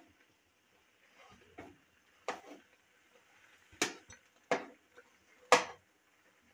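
Flat metal spatula scraping and knocking against a wok while stirring chicken pieces in water: about five short strokes at uneven spacing, the one near the end the loudest.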